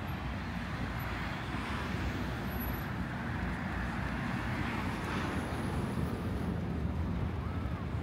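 Street traffic: a road vehicle passing close by, rising to its loudest about five seconds in and then fading, over a steady low rumble.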